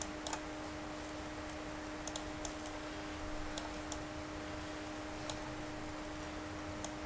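Scattered sharp computer mouse clicks, single and in quick pairs, about nine in all, over a faint steady hum.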